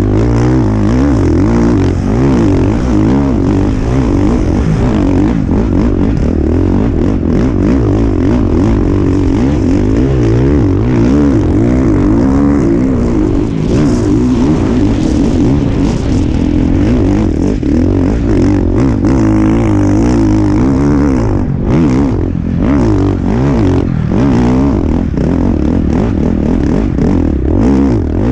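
Husqvarna motocross bike's engine revving up and down continuously while ridden hard, its pitch rising and falling with each burst of throttle and shift. The engine eases off for a few short lulls about three quarters of the way through.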